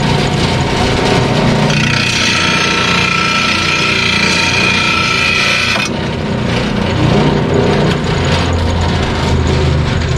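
Angle grinder of a blade-sharpening machine running, its wheel grinding along the edge of a steel lawn mower blade in one pass of about four seconds starting about two seconds in, with a bright, ringing grind over the motor's steady running.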